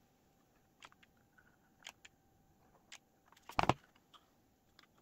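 Faint, scattered clicks of a paper model being handled and pressed, with one louder knock about three and a half seconds in as a hot glue gun is set down on the table.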